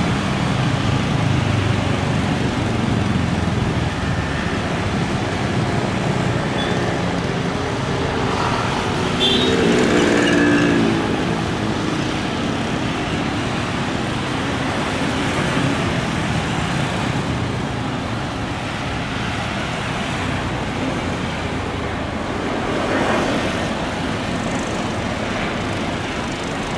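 Steady outdoor rumble of road traffic. One vehicle passes louder about ten seconds in.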